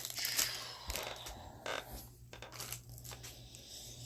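Light rustling and a few soft taps of trading cards and a pack wrapper being handled. It dies down after the first couple of seconds, over a low steady hum.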